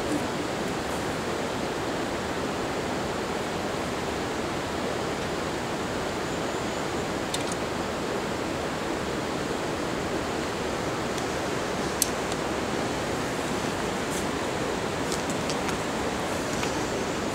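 Steady rushing background noise with a few small clicks and taps while a motorcycle tank bag and map case are handled, one sharper click about twelve seconds in.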